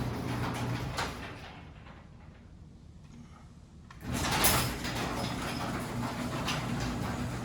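Genie ProMax chain-drive garage door opener running with the door travelling, reversed back up after a faulty safety beam sensor stopped it closing. The motor hum and door noise fade out about a second and a half in. About four seconds in, the opener and door start up again with a clatter and keep running.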